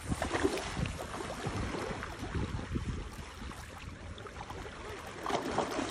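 Small waves lapping at the shoreline, with wind buffeting the microphone in a low, uneven rumble.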